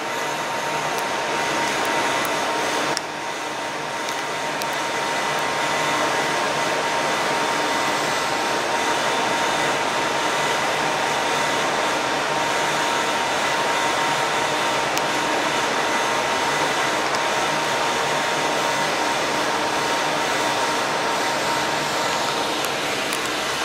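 Steady machine noise: a continuous whirring hiss with a thin steady whine, dipping briefly about three seconds in and with the whine fading near the end.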